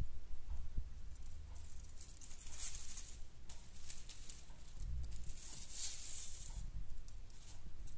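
Cat toy rustled and shaken above kittens: soft crinkling rustles, with two louder bursts about two and a half and six seconds in, over a low steady rumble.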